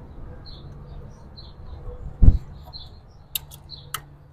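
Small birds chirping in the background, with a dull thump a little over two seconds in and a few sharp clicks near the end.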